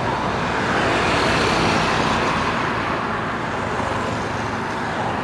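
Steady roadside traffic noise, vehicles running along a street close by.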